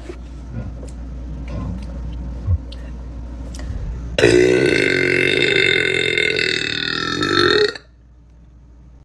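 A woman's single long, loud burp, starting about four seconds in, lasting about three and a half seconds and ending abruptly.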